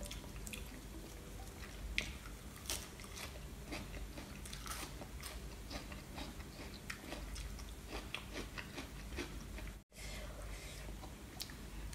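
Close-up eating sounds: a person chewing and crunching a mouthful of raw leafy herbs and vegetables, with many small crisp clicks. The sound cuts out for a split second near the end.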